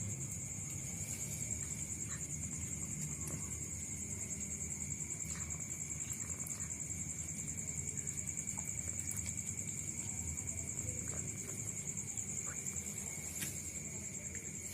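Steady high-pitched insect chorus, like crickets trilling, with a few faint clicks.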